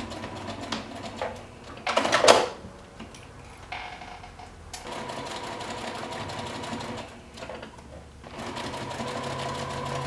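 Electric sewing machine stitching in runs of a few seconds, with a fast even needle rhythm, pausing twice and starting again. A brief loud noise about two seconds in is the loudest moment.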